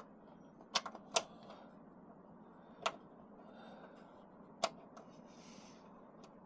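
A few sharp, separate clicks or knocks, four of them spread over about four seconds, with a brief soft rustle near the end, as of hardware being handled and fitted.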